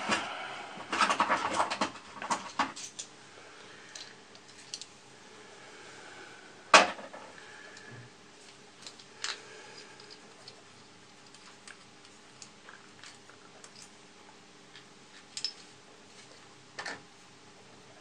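Scattered small clicks and taps of metal hand tools and plastic model parts being handled: a cluster in the first couple of seconds, one sharper click about seven seconds in, then lighter ticks.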